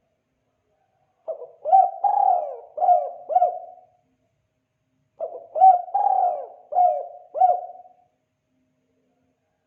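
Spotted dove (tekukur) cooing in the 'kuk 2' style: two phrases of about five low, rounded coos each, the second starting about four seconds after the first.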